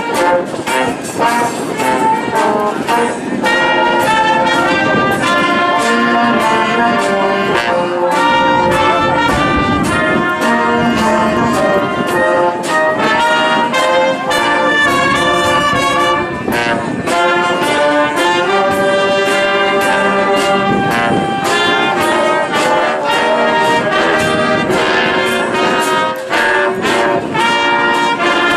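A wind band playing live, with brass (trumpets and trombones) carrying the melody over a steady beat of percussion.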